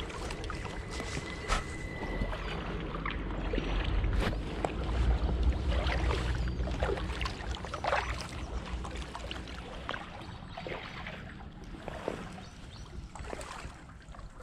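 Kayak paddle strokes dipping, splashing and dripping on flat calm water, with a low steady hum underneath from about two to twelve seconds in.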